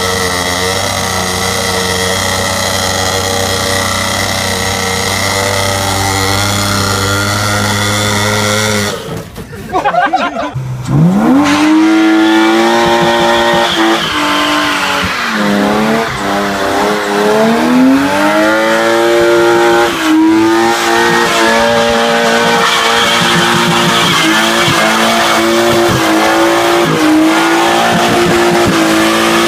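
A Yamaha dirt bike's engine runs steadily at an even pitch for the first nine seconds or so. After a cut, a BMW E36 coupe's engine revs up sharply and is held at high revs for a burnout, rear tyre spinning and squealing, the revs dipping briefly a few times.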